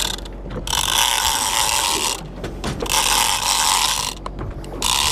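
Big-game conventional fishing reel cranked hard in three spurts, its gears whirring, with rapid fine clicking in the pauses between, while reeling in a hooked blue shark on heavy line.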